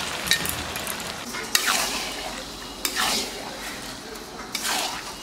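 Chicken pieces frying in a pan with a steady sizzle, stirred with a spatula that scrapes across the pan three times.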